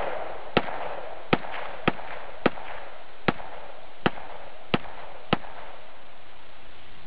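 A series of eight sharp bangs over a steady hiss, coming roughly every half second to second and stopping about five and a half seconds in.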